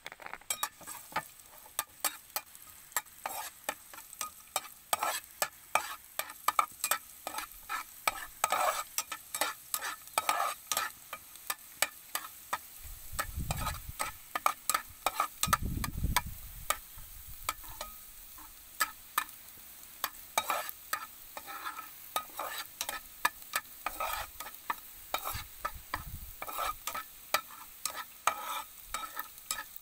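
Minced garlic sizzling in hot oil in a nonstick frying pan while a metal spoon stirs it. The spoon's many quick clicks and scrapes against the pan run throughout.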